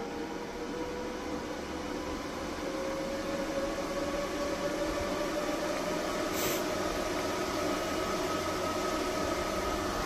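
All-in-one solar inverter's cooling fans speeding up under a 5,000-watt load: a steady whoosh with a hum whose pitch rises slowly as it grows louder. A short hiss about six and a half seconds in.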